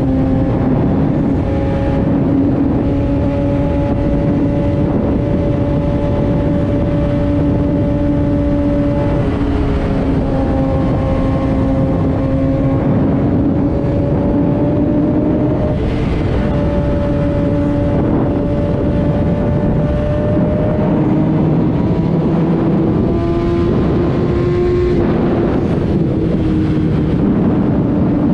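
Kawasaki ZX-6R 636 inline-four engine running at steady revs while riding, under a haze of wind and road noise. The engine pitch climbs a little about two-thirds of the way through, then eases back.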